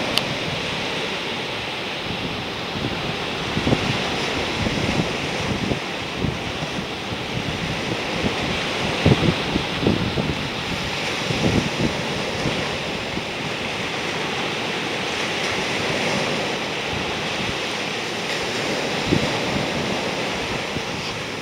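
Small knee-to-waist-high ocean surf breaking and washing up the beach in a steady rush, with gusts of wind buffeting the microphone now and then.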